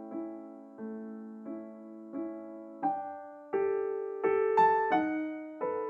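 Background music: a slow piano melody of single struck notes, each ringing and fading, more notes and a higher register after about halfway.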